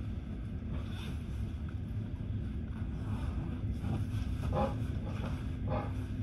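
Regional train running at speed, heard from inside the carriage: a steady low rumble of the running gear on the track. Two brief, faint higher sounds come about four and a half and six seconds in.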